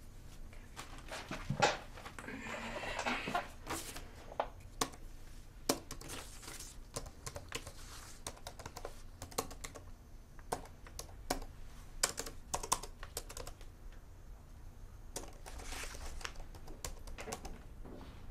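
Laptop keyboard being typed on: irregular keystroke clicks in short runs, with a couple of longer, softer rustling sounds among them.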